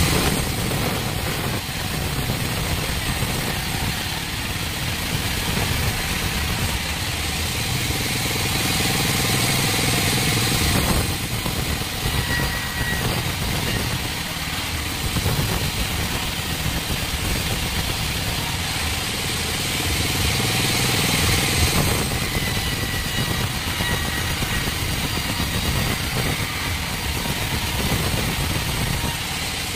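Vertical band sawmill running and cutting lengthwise through a log as it is fed along the saw table: a loud, steady machine noise with the blade's hiss through the wood, its character shifting twice.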